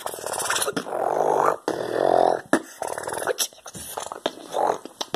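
A boy beatboxing with his hands at his mouth: rough, growl-like vocal sounds in a string of short bursts with brief gaps.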